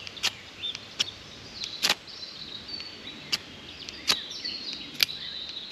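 A ferro rod struck with a small knife in about six quick, sharp scrapes, roughly one a second. The rod's fresh coating is being scraped off, and the strikes are starting to throw sparks.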